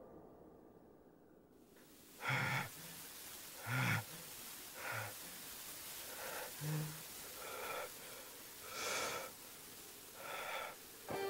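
A person breathing heavily: about seven short, hard breaths or gasps, one every second or so.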